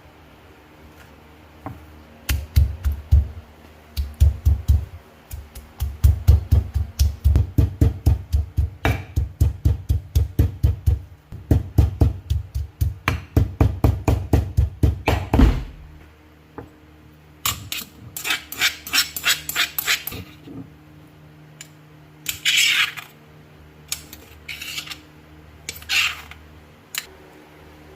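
Knife chopping rapidly on a cutting board, about five strokes a second with a thud and a click on each, in runs broken by short pauses for most of the first half. Then a few short scraping sounds.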